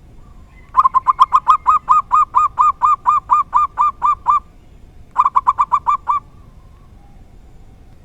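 Zebra dove (perkutut) calling: a fast run of about twenty short cooing notes lasting some three and a half seconds, then after a brief pause a shorter run of about seven notes.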